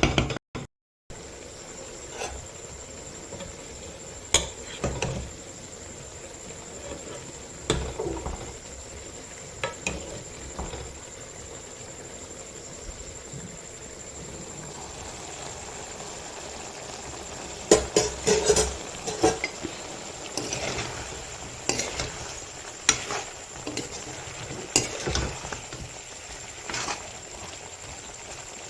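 A spoon stirring a cooking pot of chicken and potato, clinking and scraping against the pot now and then, over a steady hiss of the food cooking. The clinks come thickest in the second half.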